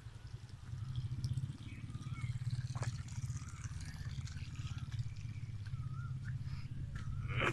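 Small birds chirping, with short wavy calls more often in the second half, over a steady low rumble on the microphone.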